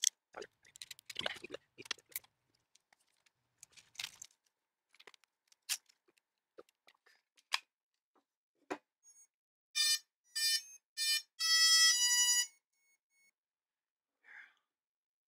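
Clicks and knocks of plastic parts and wiring being handled. About ten seconds in, the brushless-motor speed controllers give their power-up beeps: several short tones and then a longer one, the sign that the battery is connected and the controllers are armed.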